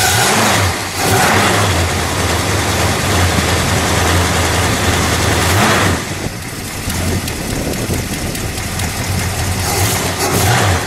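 Dodge 440 Magnum big-block V8 running just after being started, with a short blip of the throttle in the first second. It then settles to a steady idle that turns a little quieter about six seconds in.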